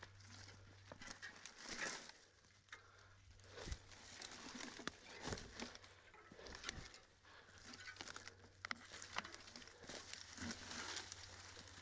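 Footsteps and mountain bike tyres rustling and crunching through dry fallen leaves and twigs as the bike is walked along, with scattered small clicks and cracks.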